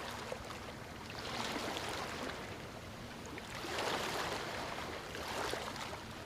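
Rushing water noise that swells and fades every couple of seconds, like waves washing in.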